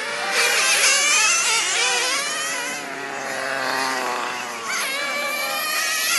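Several 1/10-scale nitro RC touring cars racing, their small two-stroke glow engines running at high revs with a high-pitched whine that rises and falls as they accelerate and brake, several engines overlapping.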